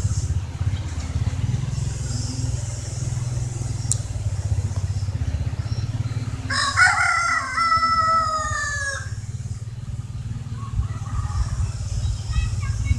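A rooster crowing once, a single call of about two and a half seconds starting about six and a half seconds in, its pitch falling slightly at the end, over a steady low rumble.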